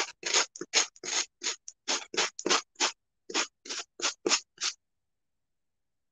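Sanding block scraped in quick short strokes, about four a second, along the edge of a ceramic tile coaster, tearing off the excess decoupaged paper; the strokes stop a little before the end.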